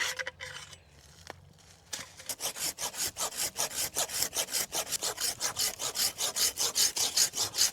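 Hand saw cutting through wood with quick, even back-and-forth strokes, about five a second, starting about two seconds in.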